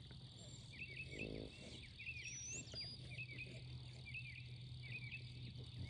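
Pasture ambience: insects keep up a steady high buzz and repeated short chirps, over a low steady hum. About a second in there is a brief low grunt.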